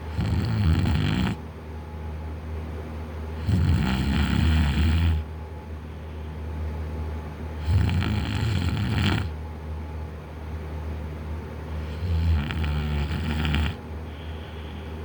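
A man snoring in deep sleep: four loud snores about every four seconds, each lasting about a second and a half, with quieter breathing between them.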